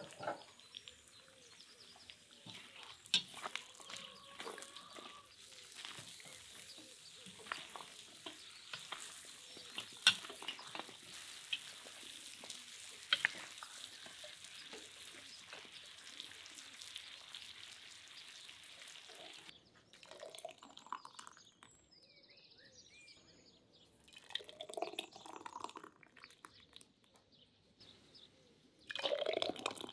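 Chunks of meat and sliced onions frying in a pot: a steady sizzle with the scrapes and knocks of a spatula stirring them. About two-thirds of the way through, the sizzle stops abruptly and only quieter, scattered knocks follow.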